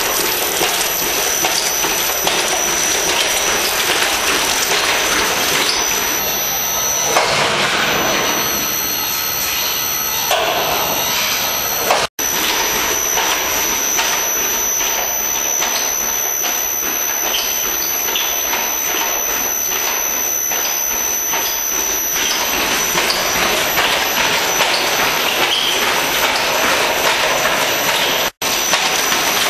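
ISO double-drum wheelchair fatigue test machine running: belt-driven drums turning under the wheelchair's wheels with a steady mechanical rumble, a fast clatter and a thin high whine. The sound drops out briefly twice.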